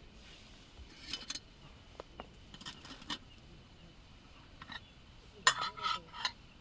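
Camp cookware and utensils being handled: scattered light clinks and knocks, then a louder clatter with a short metallic ring near the end.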